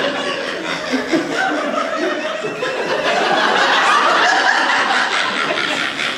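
A live audience laughing for several seconds, with one woman's distinctive laugh standing out above the rest.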